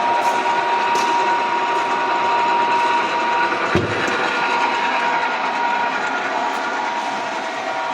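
Okuma & Howa STM 2V vertical milling machine running, its gear train giving a steady high whine with many overtones over mechanical clatter. A single sharp knock comes about halfway through.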